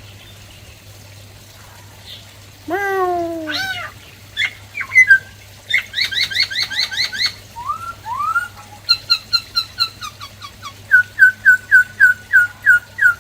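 Black-throated laughingthrush singing a varied song of many different phrases. After about two quiet seconds comes a falling harsh call, then clear whistles, a fast run of notes, two rising whistles, and series of repeated whistled notes at about four a second, loudest near the end.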